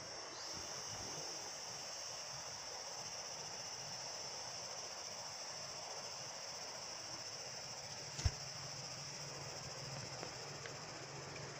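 Insects droning in one steady high-pitched tone, with a single sharp knock about eight seconds in.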